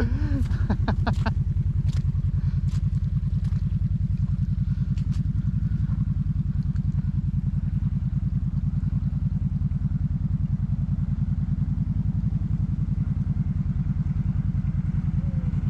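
Off-road vehicle engine running steadily at a low, even speed, with a few sharp clicks in the first second or so.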